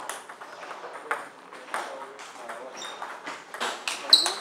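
Table tennis rally: the ball clicks sharply off the bats and table every half second to a second. Near the end comes a short, loud, high-pitched squeak, the loudest sound here, as a player lunges.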